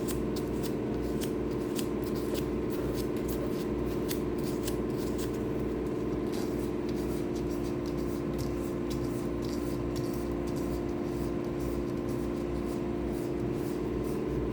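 Sandpaper rubbing and scratching on cured epoxy pore fill on a guitar body, worked by hand in short irregular strokes, over a steady hum.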